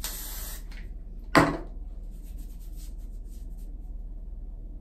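A short hiss from a hair-product spray bottle aimed at the wig's hair. About 1.4 s in comes a single sharp knock, then faint rubbing strokes.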